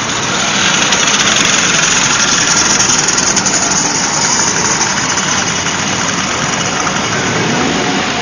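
Engines of several vintage motor scooters running as the scooters ride off together down the street.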